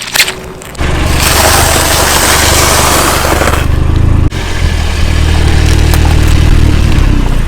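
Car engine running steadily, with a loud rushing hiss over it for a couple of seconds. The sound changes abruptly about four seconds in.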